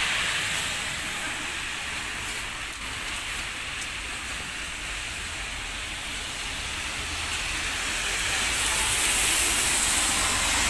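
Steady rain falling, heard as an even hiss, swelling louder near the end.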